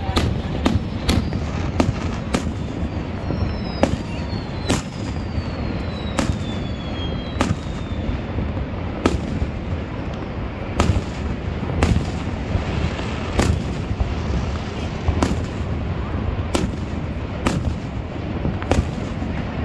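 Aerial fireworks shells bursting overhead, a sharp bang every half second to a second, over a steady low rumble. A couple of high whistles falling in pitch run from about four to eight seconds in.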